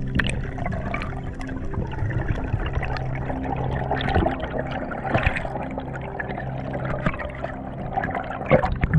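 Water sloshing and gurgling, with scattered sharp clicks, as picked up by a camera on a spearfishing dive.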